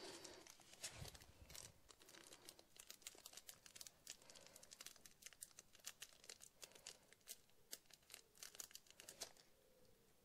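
Faint crinkling and scattered small ticks and clicks from hands working close up on small parts, with a soft thud about a second in.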